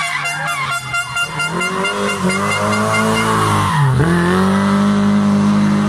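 Lada saloon rally car's engine running hard at high revs as the car climbs past close by. The pitch drops sharply just before four seconds in, as at a gear change or lift, then holds high and steady as it pulls away.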